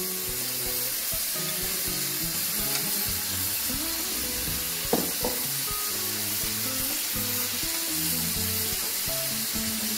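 Minced meat sizzling in a frying pan while grated carrots are added and stirred in with a wooden spoon, a steady hiss throughout. One sharp knock about halfway through, over soft background music.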